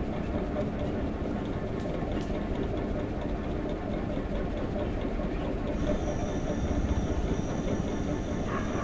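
Ceiling fan running with a steady, rattling mechanical rumble.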